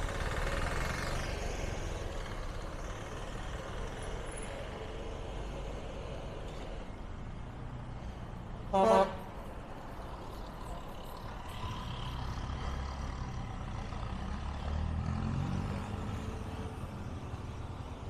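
Street traffic: vehicles passing with steady engine and road noise, and one short, loud vehicle horn toot about halfway through.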